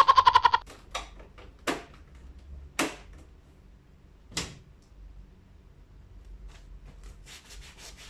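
Plastic parts of a split air-conditioner's indoor unit being handled: a quick rattle, then several separate clicks and knocks as the mesh air filters are pulled out, and near the end a run of scraping and rubbing as the plastic filters are handled.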